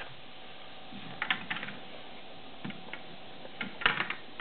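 Small hard plastic clicks and clatters of Lego pieces being handled: a few clicks about a second in and a quick run of clicks near the end, over a steady faint hiss.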